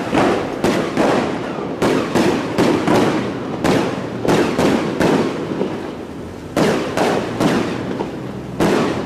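Firecrackers going off in a dense crackle, with louder bangs every half second to a second; the bangs ease off a little about six seconds in, then pick up again.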